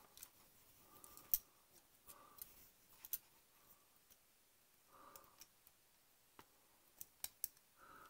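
Faint small clicks and taps of hands working small plastic model-kit parts with a hand tool, in near silence; a few isolated clicks, then three quick ones close together near the end.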